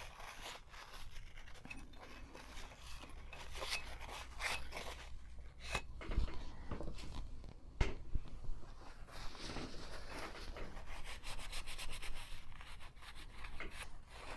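Rubbing, scraping and small clicks from cleaning old grease out of a vintage sewing machine's gear area, with two louder knocks about six and eight seconds in.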